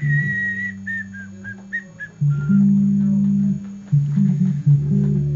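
Electric bass guitar playing a slow line of held low notes. Over the first couple of seconds someone whistles a short melody of falling notes above it.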